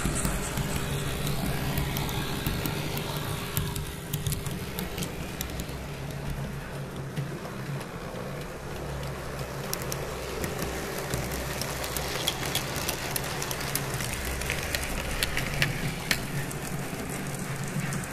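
TT-scale model trains running on the layout: a steady low electric-motor hum with light clicking of the small wheels over the rail joints, the clicks coming more often in the second half.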